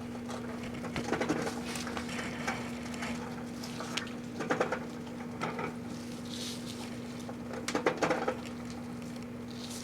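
Microwave oven running with a steady hum while a singing plush toy inside crackles and pops in sharp clusters a few times, its electronics arcing and burning.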